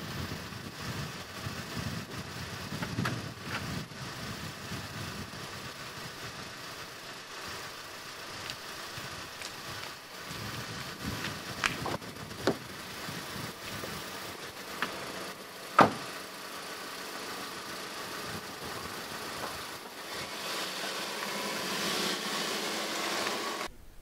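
A car engine running, with a few sharp clicks and knocks; the loudest knock comes about two-thirds of the way in. The engine grows louder near the end, then cuts off suddenly.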